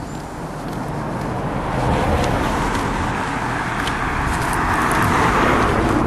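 A car coming along the road towards the listener, its tyre and engine noise swelling steadily and loudest near the end.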